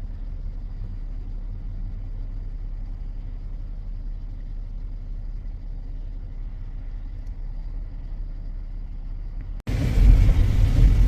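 Steady low rumble of a car driving. About ten seconds in it cuts abruptly to a much louder rumble and hiss.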